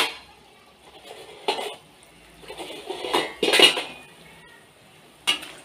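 Steel plate and utensils clinking against a stainless steel kadai, about four sharp knocks a second or two apart, the loudest a little past halfway, as murukku is slid into hot oil. Between the knocks there is a soft hiss of the oil bubbling around the frying murukku.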